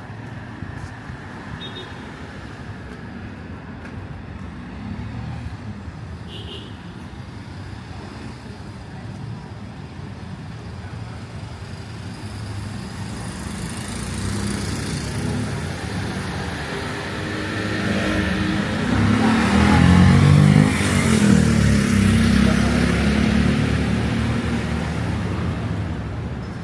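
Street traffic with a motor vehicle's engine growing steadily louder, loudest past the middle, then fading away as it goes by.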